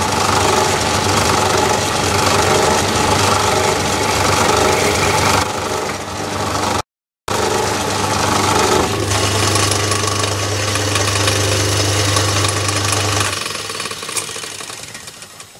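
Metal lathe running with a steady hum as it spins an aluminium bar being centre-drilled from the tailstock. The sound drops out briefly a little before the middle, and near the end the lathe is switched off and runs down.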